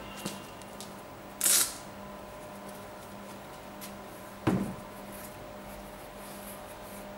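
Handling noise from a suede high-top sneaker being moved about by hand: a few light clicks, a short rustling swish about a second and a half in, and a dull thump about four and a half seconds in, over a steady electrical hum.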